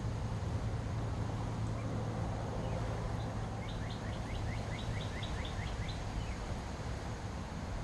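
A songbird sings a quick phrase of short repeated high notes, about four a second, for a couple of seconds midway, over a steady low rumble of outdoor background noise.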